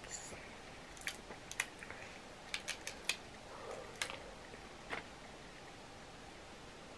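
Boiled crab leg shells being cracked and snapped apart by hand: a run of short, sharp cracks and clicks, bunched between about one and five seconds in.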